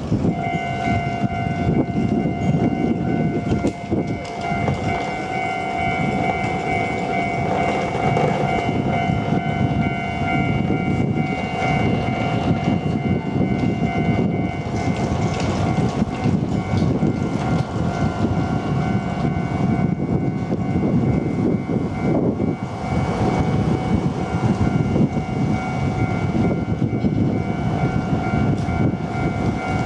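Japanese railway level-crossing warning alarm on the Nambu Line, ringing as a steady repeating tone that starts right at the beginning. A train rumbles and clatters over the rails past the crossing under it.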